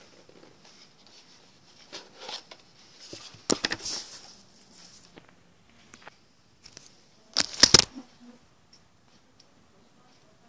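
A small cardboard box being handled and opened: rustling and light clicks, with two louder clusters of scraping and clicks, one a few seconds in and one about three quarters of the way through.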